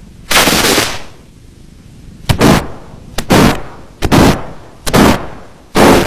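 Stomach-growling sound effect, heavily distorted by effects processing, heard as harsh, loud noisy bursts. One comes near the start, then five shorter ones follow about a second apart from about two seconds in.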